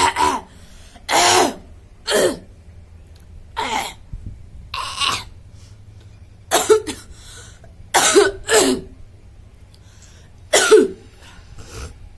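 A woman coughing and clearing her throat, about nine short coughs one to two seconds apart, some in pairs. Her throat is scratchy and irritated from long, deliberate coughing.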